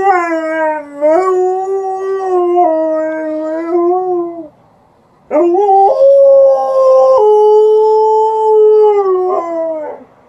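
Alaskan Malamute howling in answer to a siren outside: two long, loud howls with a short break about halfway through, the second rising at its start, holding with small steps in pitch and falling off at the end.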